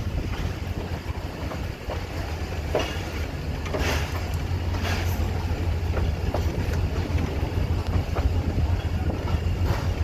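Passenger train rolling slowly into a station: a steady low rumble from the coaches, with scattered clicks and knocks from the wheels and couplings.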